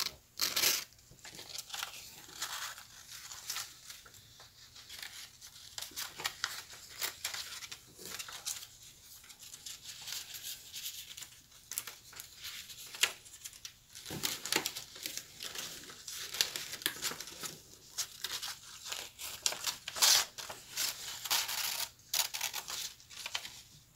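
Paper rustling and crinkling as coloured paper strips are pulled through slits in a paper sheet, with irregular small crackles and snaps throughout.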